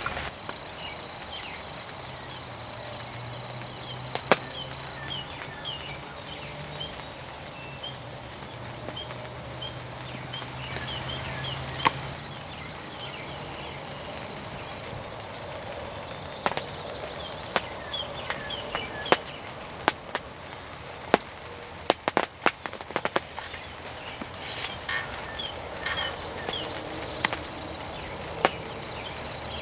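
Steady rain falling, with heavy drops ticking irregularly close by, coming thicker in the second half, and faint short bird chirps over it.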